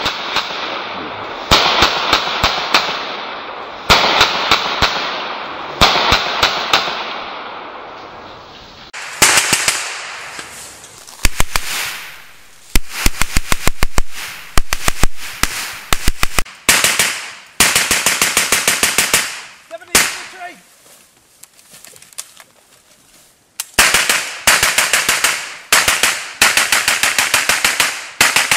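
Bren light machine gun converted to fire on gas, shooting repeated bursts of automatic fire: rapid strings of sharp bangs, some short and some longer, with a pause of about three seconds past the middle.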